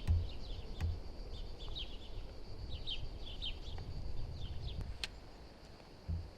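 Outdoor ambience: small birds chirping in quick, short falling notes over a steady high insect buzz, with a low rumble underneath and a few faint clicks.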